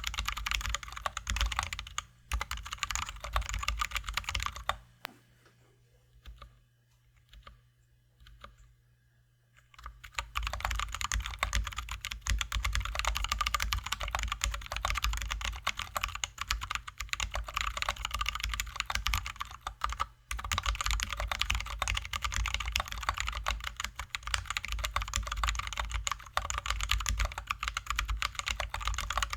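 Rapid typing on a Drop ALT high-profile mechanical keyboard with lubed, filmed Zealios V2 67g tactile switches under XDA-profile keycaps: a dense run of keystroke clicks. The typing stops for about five seconds, starting about five seconds in, with only a few faint taps, then picks up again and runs on.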